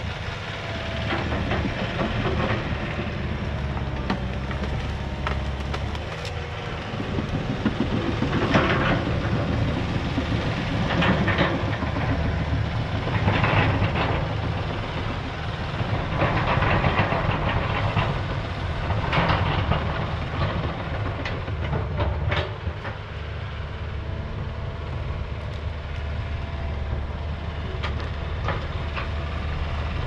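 Crawler dozer running and working through brush and debris: a steady engine with clanking, rattling tracks, and a series of louder clattering surges every two to three seconds through the middle stretch.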